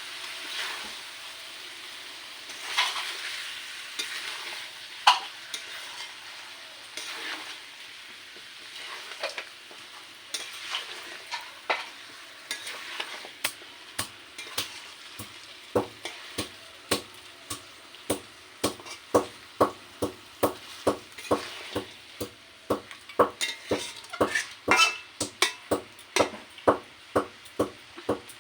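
Chicken and onion sizzling in hot oil in a pan while being stirred and fried down for a curry. From about halfway the spatula knocks and scrapes against the pan in a steady rhythm of about two strokes a second.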